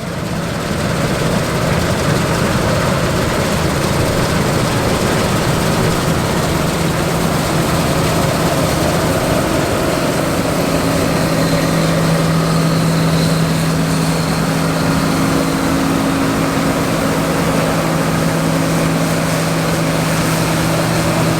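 John Deere 9750 STS rotary combine running steadily under load while harvesting wheat, a dense mechanical rush with a steady low hum that grows stronger about halfway through.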